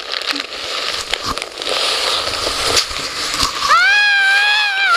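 A sled sliding fast down a snowy slope: a steady rushing hiss of snow under the sled with scattered crunches and crackles. About three and a half seconds in, a high voice lets out a long, steady squeal of excitement.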